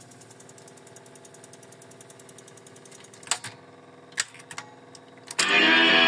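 Astra MK-110 S1 reel-to-reel tape recorder's transport running with a steady motor hum and a fine rapid ticking, then a few sharp clicks of its control keys as the mode is switched. Near the end, music starts playing back loudly from the tape.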